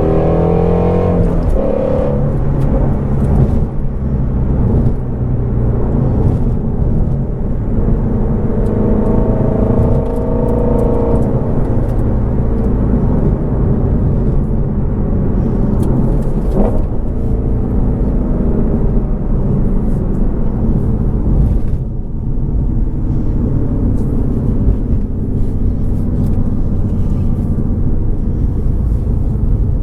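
Shelby GT350R's 5.2-litre flat-plane-crank V8 on the move: the revs fall at the start, climb again from a few seconds in until about ten seconds, then hold mostly steady. A short drop in level comes a little past twenty seconds.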